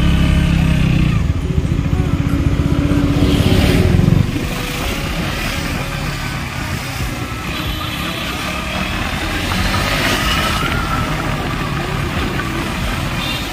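Motorcycle engine heard from the rider's seat, pulling with a strong steady note for about four seconds, then dropping suddenly to a quieter, steady run.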